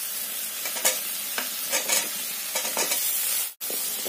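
Pigeon meat and masala sizzling in hot oil in a wok, fried until the oil has separated, as chunks of raw potato go in and a steel ladle scrapes and knocks against the pan while stirring. The sound cuts out for a moment about three and a half seconds in.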